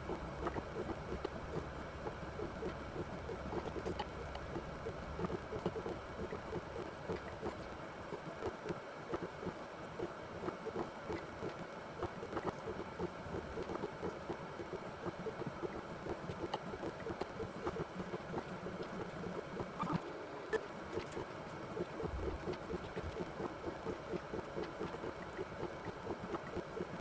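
Benchtop robotic blacksmithing machine running at the start of its autonomous forming cycle: a steady mechanical hum with a rapid, irregular fluttering patter.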